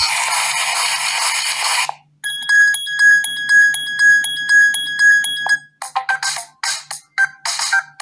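BQ Contact phone's loudspeaker playing its preset ringtones. A harsh, hissy sound cuts off about two seconds in. Then an electronic tone pulses about twice a second, and near the end a new tune of short, quick notes begins.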